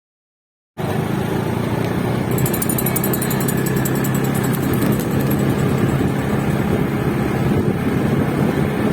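Steady running noise of a vehicle engine, with a few steady low tones in it, starting abruptly about a second in.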